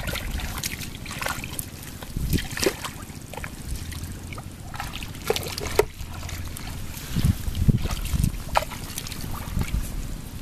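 Bare feet and hands sloshing and squelching in shallow muddy water, with short irregular splashes and trickles as someone wades and gropes through the mud by hand.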